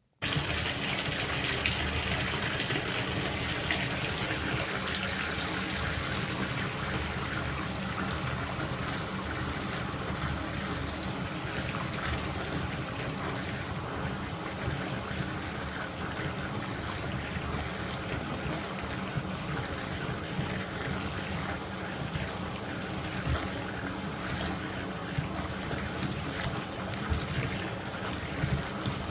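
Bathtub tap running full, its water pouring through a steel mesh strainer of crumbled bubble bar into a filling tub. It starts abruptly and then runs steadily.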